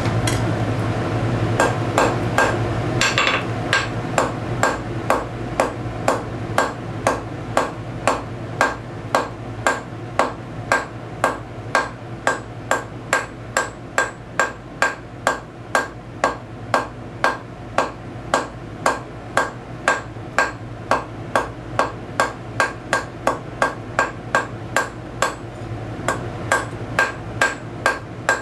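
Hand hammer striking a hot steel bar on an anvil in a steady rhythm of about two blows a second, each with a short metallic ring, drawing a point on the end of the bar.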